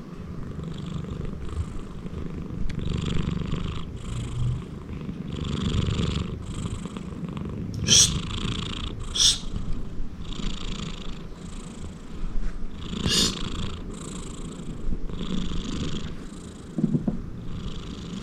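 Big Persian Himalayan cat snoring loudly, a rasping snore on each breath about once a second, with three sharper, louder snores in the middle.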